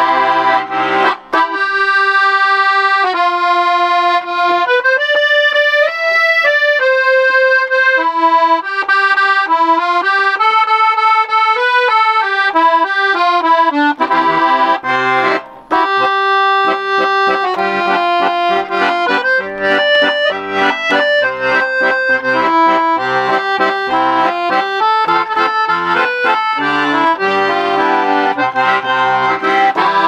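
Hohner Verdi III N 120-bass piano accordion with LMM treble reeds, playing a melody. For about the first half the melody is on the treble keys alone. From about halfway, bass and chord buttons join in underneath with a steady oom-pah accompaniment.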